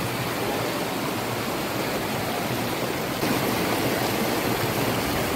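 Running water rushing steadily, growing louder about three seconds in.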